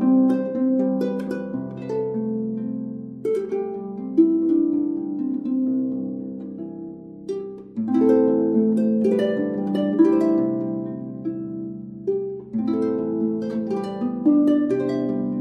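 Instrumental music of plucked strings: rippling notes that ring and fade over held low notes, with a louder new phrase starting about halfway through.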